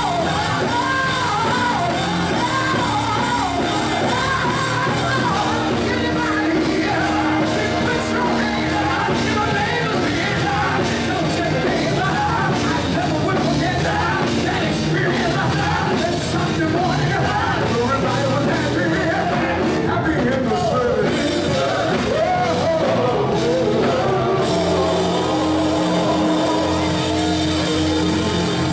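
A vocal group singing live over a band of drum kit, electric bass, electric guitar and keyboards.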